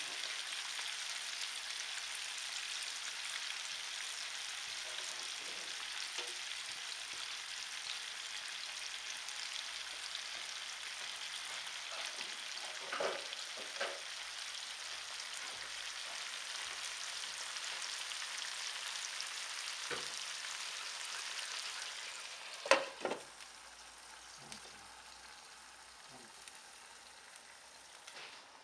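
Pork sausages and sliced onions sizzling steadily in hot oil in a frying pan, with a couple of light knocks about halfway. Near the end a glass lid clatters onto the pan, and the sizzling goes on quieter under it.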